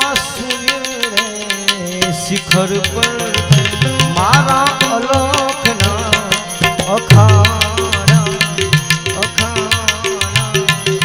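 Gujarati folk music: hand drums beating a fast, steady rhythm under a wavering melody line that comes in strongly about four seconds in.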